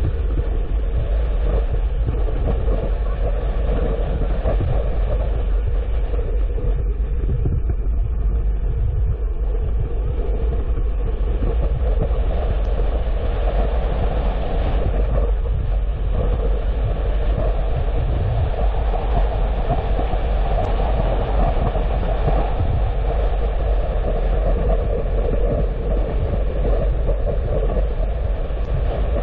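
Steady road noise from a car driving along, tyres and engine running at an even, unbroken level with the energy mostly low down.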